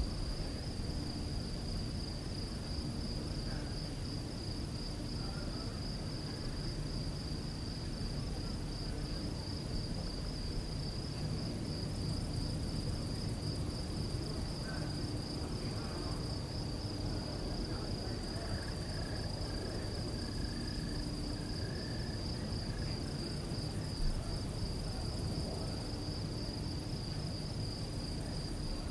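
Crickets singing in a steady, high, finely pulsing trill that never stops, over a constant low background rumble.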